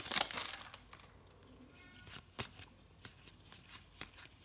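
Foil trading-card pack crinkling as it is torn open, dying away within the first half second. Then faint, scattered clicks as cards are flicked through one at a time, the sharpest about halfway.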